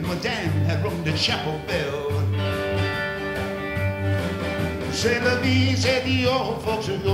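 Live rock-and-roll band playing an instrumental break: electric bass and drum kit keep a steady beat while an electric guitar takes the lead, holding one long note from about two seconds in to about five, then playing notes with a wavering vibrato.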